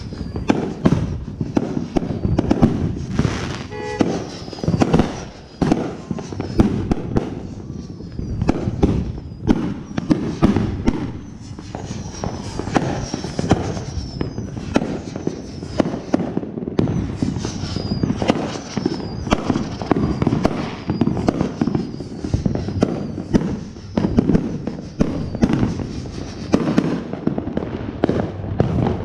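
Fireworks going off all around without pause: rapid irregular firecracker pops and bangs, with several whistling fireworks falling in pitch.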